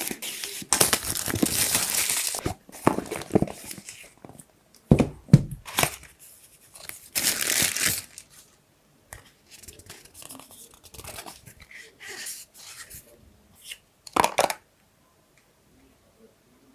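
Smartphone packaging being opened: irregular tearing and crinkling of plastic or paper wrap, with a few sharp clicks and knocks of the box being handled. The loudest tearing comes in two long spells, and the handling stops a couple of seconds before the end.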